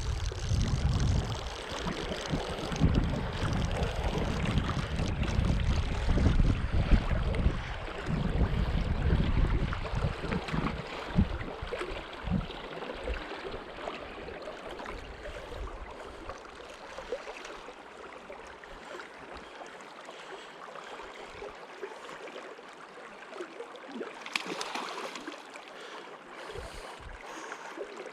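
Wind buffeting the microphone over the steady rush of a river. The gusty rumble dies away about twelve seconds in, leaving the even hiss of flowing water.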